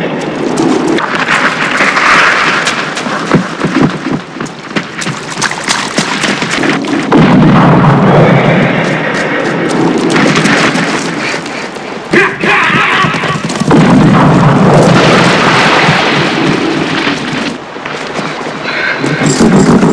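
Film sound of a bear attack: a bear roaring in repeated loud surges, with scuffling and impacts as it struggles with a man.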